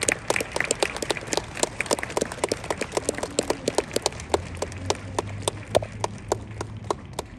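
Applause from a small number of people, the separate hand claps clearly distinct at several a second, thinning a little toward the end.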